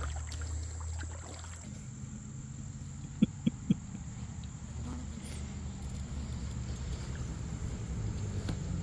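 Insects droning steadily on one high note over a constant low rumble, with three quick clicks a little after three seconds in.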